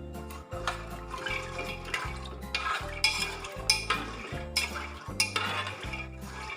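A spoon stirring soaked black chickpeas, water and salt in a pressure cooker, with repeated scrapes and clinks against the pot, over background music with a steady bass beat.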